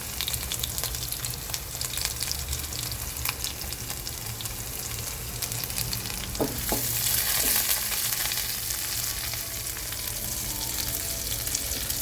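Garlic and ginger sizzling and crackling in hot chicken fat and garlic oil in a pot while being stirred, the aromatics frying until fragrant. The sizzle swells louder for a couple of seconds past the middle.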